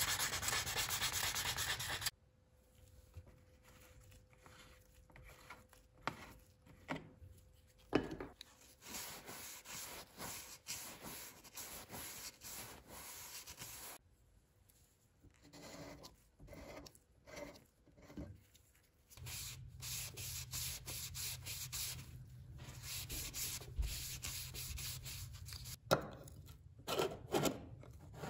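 Sanding by hand: steady sanding that stops about two seconds in, then scattered rubbing and sanding strokes. A low steady hum comes in about two-thirds of the way through, with a few sharp knocks near the end.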